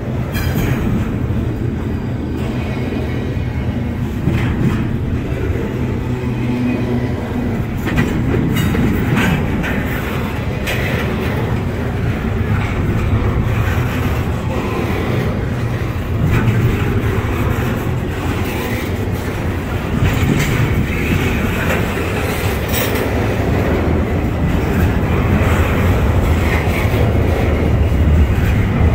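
Double-stack intermodal freight train rolling past at close range: a steady rumble of steel wheels on rail, with scattered clacks as the well-car wheels cross rail joints.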